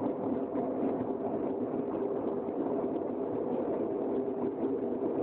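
Steady, even rushing noise of a crucible furnace plant running, with no breaks or strokes.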